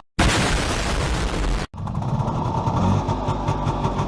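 A vintage two-stroke snowmobile engine running just after starting, rough and popping. A loud, noisy rush in the first second and a half is cut off abruptly at both ends before the engine settles into a steady, pulsing idle.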